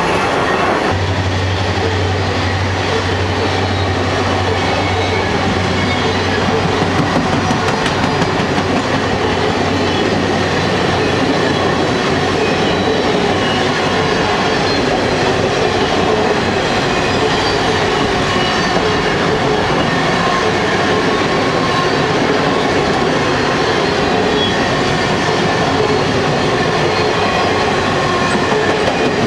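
A long train of circus passenger coaches rolling past close by, steel wheels running on the rails in a loud, steady rush. A steady low hum sits under it for the first ten seconds or so.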